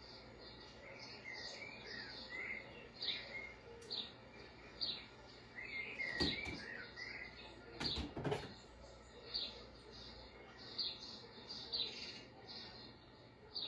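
Small birds chirping, a run of short, quick calls that repeat throughout, with a few sharp knocks about six seconds in and again about eight seconds in.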